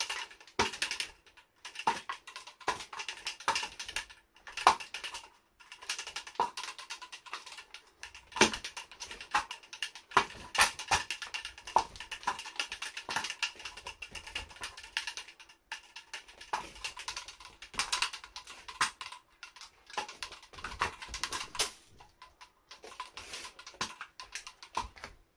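Homemade nunchaku of two plastic drink bottles tied together with string, swung and spun fast, the bottles giving quick irregular sharp plastic knocks and clacks, several a second. The clacking stops abruptly at the end.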